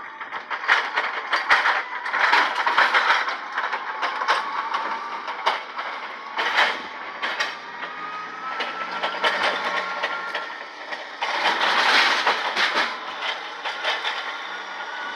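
Scrap metal clanging and clattering as it is unloaded: a run of uneven metallic knocks and bangs, with a faint mechanical whine rising slowly in pitch through the second half.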